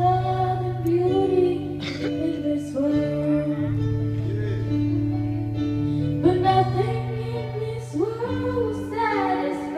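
A young girl singing a solo into a handheld microphone over an instrumental backing of held bass notes, her voice wavering on the longer notes.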